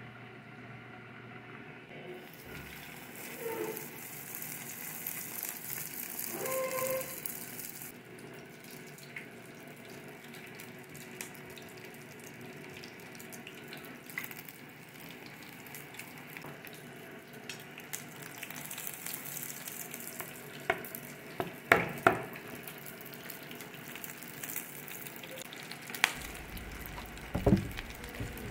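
Fritters sizzling in hot oil in a frying pan, a steady hiss. A few sharp clinks of a utensil against the pan or bowl come late on, the loudest about two-thirds of the way through.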